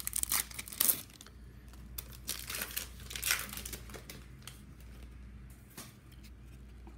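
Plastic foil wrapper of a hockey card pack crinkling as it is handled and opened. The crackling is densest in the first second, then comes in fainter, scattered crackles.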